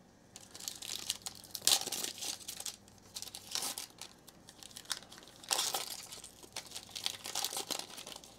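Foil trading-card pack wrapper crinkling and tearing as it is ripped open by hand, in irregular bursts, loudest about two seconds in and again around five and a half seconds.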